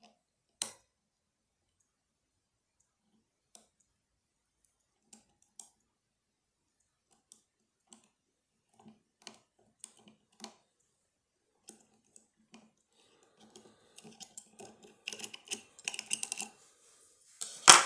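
Lock-picking tools clicking and scraping inside a lever lock: sparse light clicks, then a run of rapid clicking over the last few seconds, and one sharp, loud click near the end.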